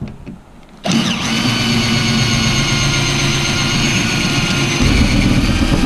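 Power drill running steadily under load, drilling out a rivet in a bus interior panel. It starts abruptly about a second in and gets a deeper undertone near the end as it bites.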